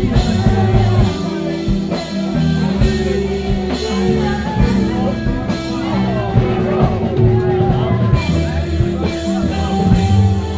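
A rock band playing live: drum kit, bass and electric guitar, with a voice singing over them.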